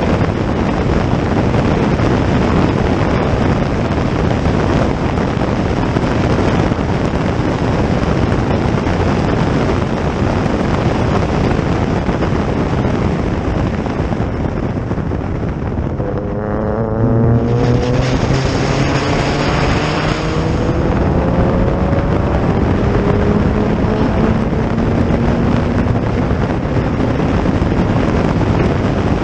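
Heavy wind noise on the microphone throughout. About halfway through, a historic race car's engine comes through, its pitch climbing as it accelerates past.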